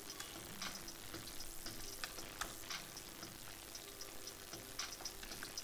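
Faint computer keyboard typing: scattered single key clicks over a low hiss with a faint steady hum.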